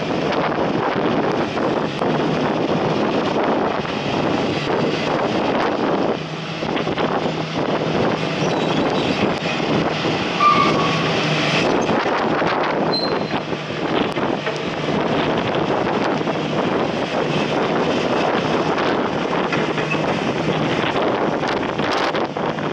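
Strong wind buffeting the microphone in heavy rain, a dense, steady rushing, with a steady low hum underneath.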